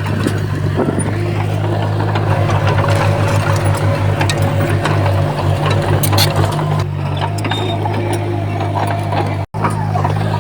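Komatsu D31P bulldozer's diesel engine running under work, with a throbbing pulse through the middle stretch and scattered clanks. The sound breaks off for an instant near the end.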